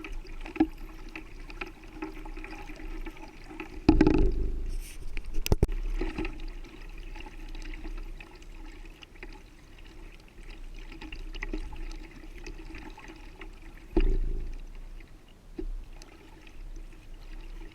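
Water splashing and trickling as a kayak is paddled along a river. It gets suddenly louder twice, about four seconds in and again about ten seconds later.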